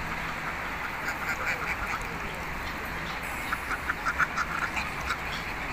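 A flock of ducks quacking in quick runs of short calls: a first run about a second in, then a louder, longer run from about three and a half seconds.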